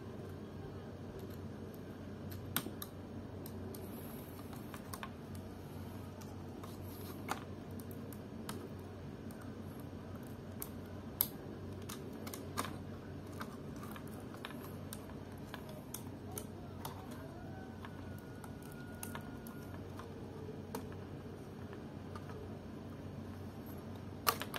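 Scattered small clicks and taps of plastic and metal laptop parts being handled as a Samsung NP300E4X laptop's motherboard is disconnected and lifted from its chassis. A steady low hum runs underneath.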